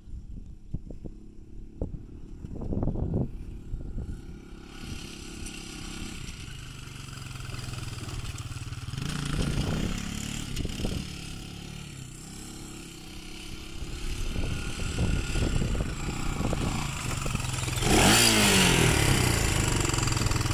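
Honda TRX300EX ATV's single-cylinder four-stroke engine revving up and down as the quad slides around. It is loudest near the end, where the revs dip and then climb again.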